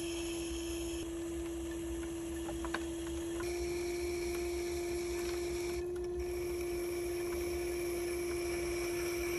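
Electric pottery wheel's motor humming steadily while a Bison loop trimming tool scrapes the spinning clay bowl, shaving off ribbons of clay. The hum steps up slightly in pitch about three and a half seconds in.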